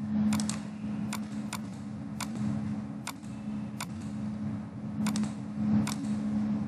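Computer mouse clicking about nine times at irregular intervals, some clicks in quick pairs, over a steady low hum.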